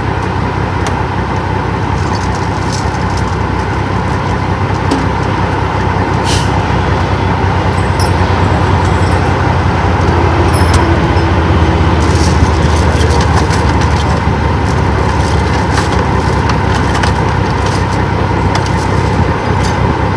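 Heavy diesel truck engine idling with a steady rumble, swelling slightly midway, with scattered light metallic clicks and clinks over it.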